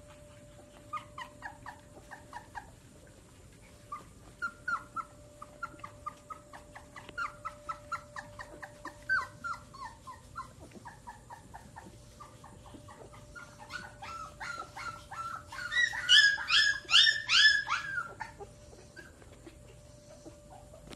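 Husky puppies whimpering: runs of short, high squeaky whines, each dropping in pitch, that swell into a louder, quicker burst about three quarters of the way through before tailing off.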